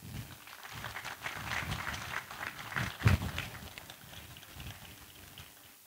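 Scattered audience applause: irregular clapping that thins out and dies away over a few seconds.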